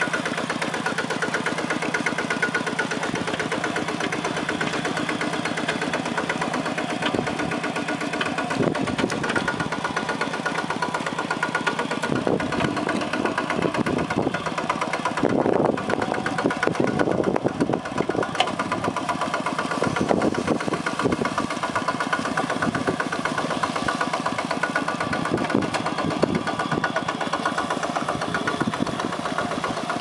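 Two-wheel walking tractor's single-cylinder diesel engine running steadily as the machine works through a flooded rice paddy.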